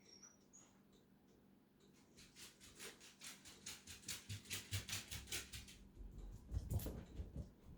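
Dog giving a brief high squeak, then a fast, even run of noisy strokes, about five a second, for around four seconds, ending in a louder burst with low thuds shortly before the end.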